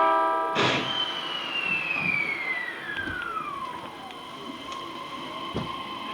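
Electric train pulling away: a short burst of hiss, then a whine that falls steadily in pitch over about three seconds and settles into a steady hum as the train moves off.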